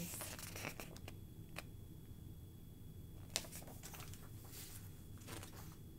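Faint handling of a paperback picture book: a page turning with soft paper rustles and a few light ticks.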